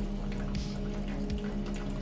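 A stream of water running from a Philips 2200 LatteGo espresso machine's spout into a bowl during its first-use rinse cycle, which flushes water through the machine's internal pipes.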